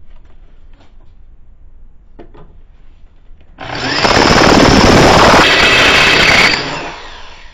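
Electric drill running for about three seconds, starting about three and a half seconds in, its bit grinding against 1/8-inch steel plate wetted with penetrating oil. The bit is not cutting: it is failing to bite into the steel.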